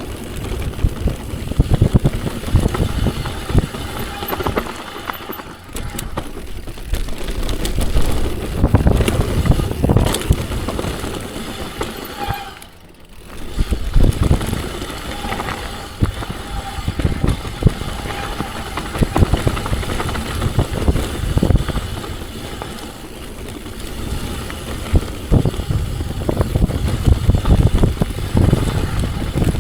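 Downhill mountain bike descending a rough trail: a constant rush of wind on the microphone, with the tyres on dirt and many quick rattles and knocks from the bike over roots and bumps. About halfway through it goes briefly quieter, then the rattling and wind pick up again.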